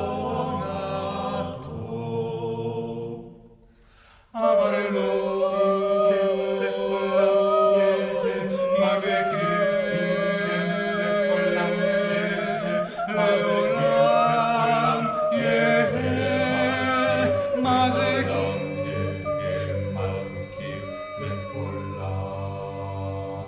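Chamber ensemble music with chant-like singing over sustained held chords, the melodic line wavering up and down. About three seconds in the sound fades almost away, then re-enters suddenly a second later; a low bass layer joins about two-thirds of the way through.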